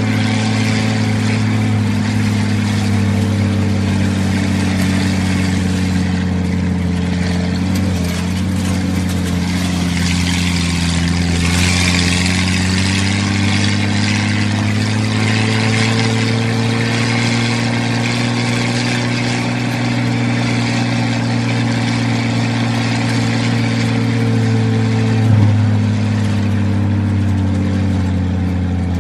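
Old Jeep engine running steadily while driving. The engine note drifts gently up and back down in pitch through the middle, with a brief louder bump near the end.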